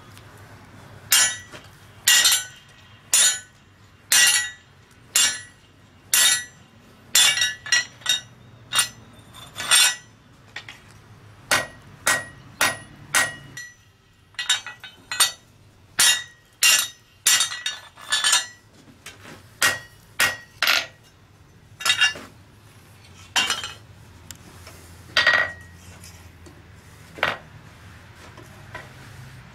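Hand hammer striking a red-hot mild steel flat bar held in a bending jig on the anvil, each blow a sharp metallic clank with a short ring. The blows come irregularly, about one a second, with a short pause about halfway and fewer blows near the end.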